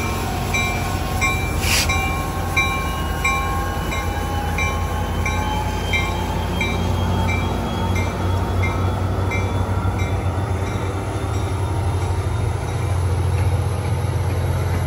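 Diesel locomotive's bell ringing about twice a second over the steady low rumble of its engine as the passenger train pulls out, with the engine's pitch rising slowly as it accelerates. The bell stops about twelve seconds in, leaving the engine and the rolling train.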